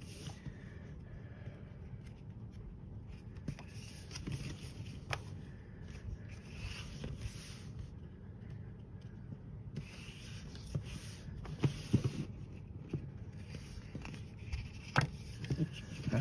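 Paper pages of a coloring book being turned and handled: soft rustling swishes now and then, with a few light taps and clicks.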